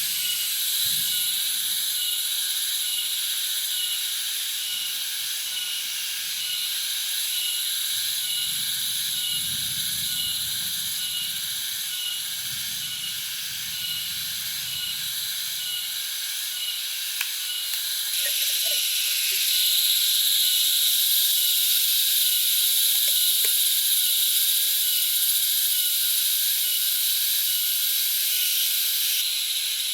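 Steady high-pitched insect chorus in the forest, with a chirp pulsing about one and a half times a second; it gets louder about two-thirds of the way through.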